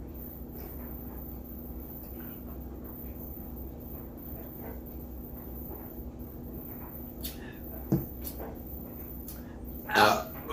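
Quiet room with faint small sounds, a short sharp sound about eight seconds in, then a loud burp near the end, brought up after drinking carbonated hard seltzer.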